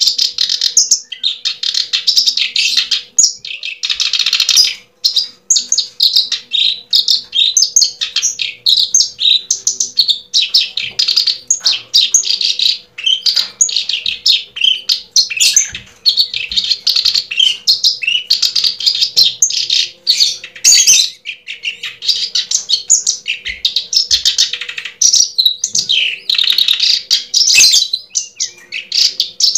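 Birds chirping continuously: a dense stream of quick, high calls with hardly a pause.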